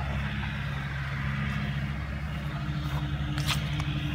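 Steady low hum of a motor vehicle engine running, with a brief sharp tick about three and a half seconds in.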